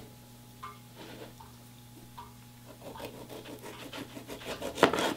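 Kitchen knife slicing a tomato on a cutting board: a few faint strokes at first, then quicker, louder scraping cuts from about three seconds in, loudest near the end. A steady low hum runs underneath.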